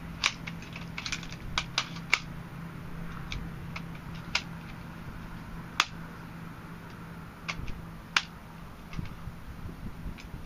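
Sharp, irregular clicks and clacks of a DPMS AR-15 rifle in .223 being handled: parts of the action and magazine well being worked, a quick cluster of clicks in the first two seconds, then single clicks every second or two.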